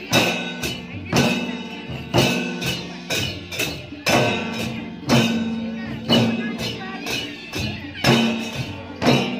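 Several chyabrung, the Limbu double-headed barrel drums, beaten together by dancing drummers in a steady rhythm: a loud stroke about once a second, with lighter strokes in between.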